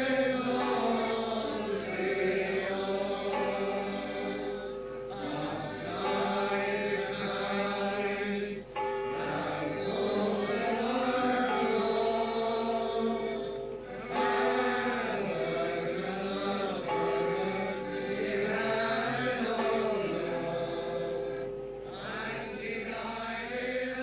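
A group of voices singing a folk song together in chorus, with short breaths between phrases.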